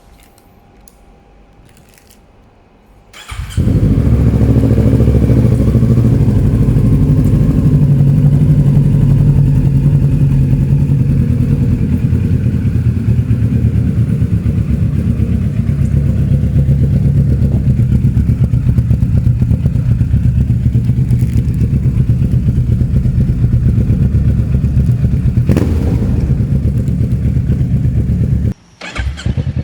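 Kawasaki Ninja 650 parallel-twin engine started about three seconds in, then idling steadily through its standard exhaust. The sound drops out briefly near the end and comes back.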